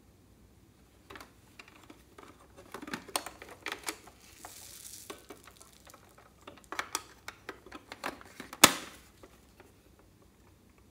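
A hollow plastic pony-shaped toy case being handled, its hinged lid opened and shut: a run of light plastic clicks and taps, a brief hiss about four to five seconds in, and one sharp plastic snap near the end, the loudest sound.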